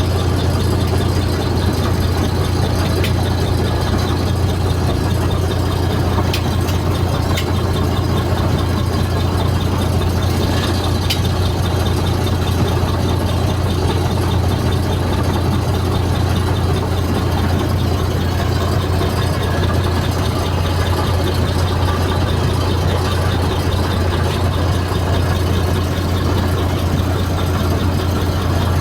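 Diesel engine of a Volvo B58E bus idling steadily, a low, even drone that holds the same pitch throughout, with a few faint clicks.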